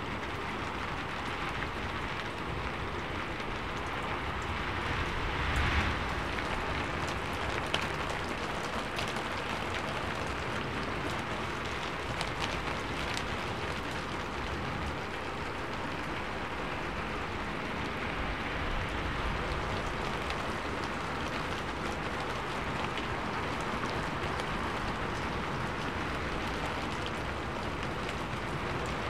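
Steady rain falling on a sheet-metal roof: a dense, even patter of drops, with a brief louder swell about six seconds in.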